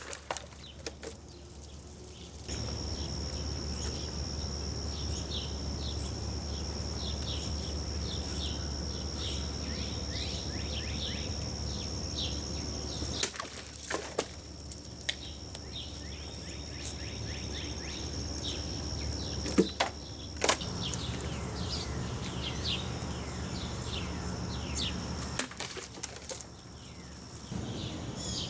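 A few sharp whacks of a Cold Steel Voyager XL Kris folding knife chopping through bottles. Two come together about halfway through and two more a few seconds later. Birds chirp throughout over a steady high-pitched tone and a low hum.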